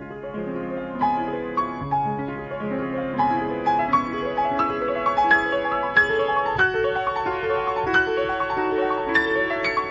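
Background piano music, a gentle melody of quick successive notes over a bass line.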